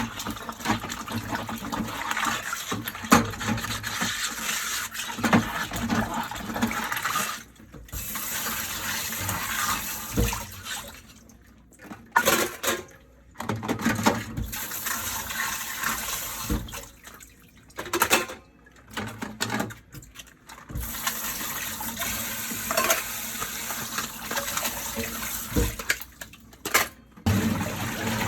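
Dishes being washed at a kitchen sink: a tap runs in stretches and is shut off several times, with rinsing water and now and then the knock and clatter of dishes.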